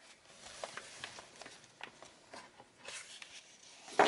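A stack of patterned craft paper handled and leafed through by hand: soft rustles and light taps, with one sharper knock near the end.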